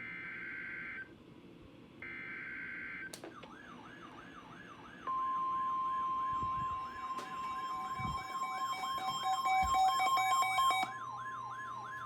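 Emergency Alert System alert: about a second of screeching digital header data twice in the first few seconds, then a fast-warbling electronic siren tone, joined a couple of seconds later by a louder steady alert tone. More steady and warbling tones stack up until most cut off about eleven seconds in, leaving the warble and one steady tone.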